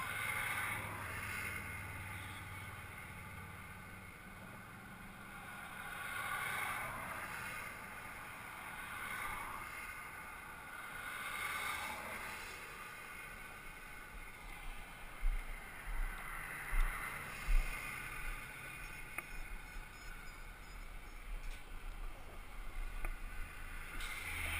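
Wind on a head-mounted camera's microphone high on a bridge, swelling and fading every few seconds, with a run of low buffets about two thirds of the way in.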